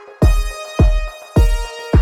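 Electronic background music with a steady kick-drum beat, about two beats a second, under sustained synth chords.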